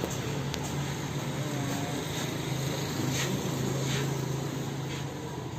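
Steady low mechanical drone with a constant hum, and a few faint clicks.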